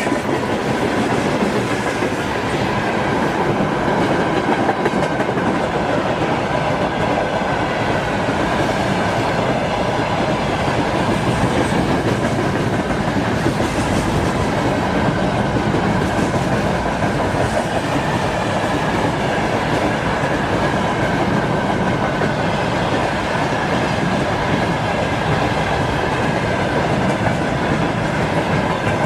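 Freight train wagons rolling past with a steady clatter of wheels over rail joints and a faint high ringing from the wheels on the rails.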